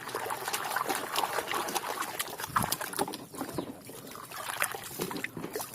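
A toy being washed by hand in water: sloshing and trickling with many small clicks and scrapes as it is rubbed clean.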